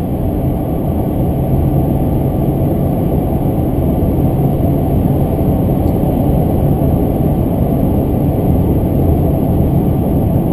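Steady in-cabin drone of a 2003 Chevrolet Silverado SS's supercharged 6.0-litre V8, fitted with a Magnuson MP122 supercharger, cruising at highway speed, mixed with road and tyre noise.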